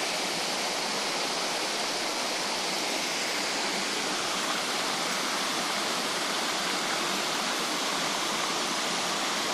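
A stream of running water rushing steadily.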